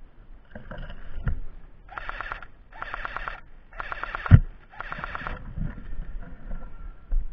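Airsoft electric gun firing four short full-auto bursts, each about half a second of rapid clicking, under a second apart. A single loud thump comes during the third burst.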